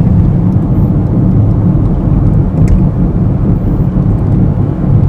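Inside a moving car: a loud, steady low rumble of road and engine noise in the cabin.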